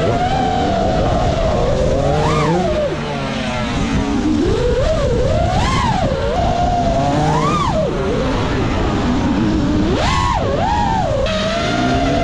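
FPV freestyle quadcopter's four brushless motors (Ethix Stout 2306 1750 kV) whining, heard from the drone's onboard camera. The pitch holds steady while cruising and rises sharply several times (about 2, 6, 7.5 and 10 seconds in) as the throttle is punched, then falls back.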